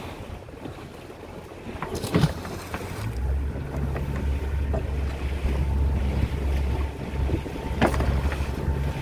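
Small fishing boat under way: a low rumble of engine and wind buffeting the microphone, with water noise, that swells about three seconds in. Two sharp knocks stand out, one a couple of seconds in and one near the end.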